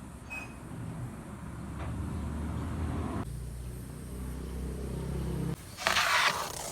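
Low, steady engine rumble of a motor vehicle, followed near the end by a loud, short burst of hissing noise.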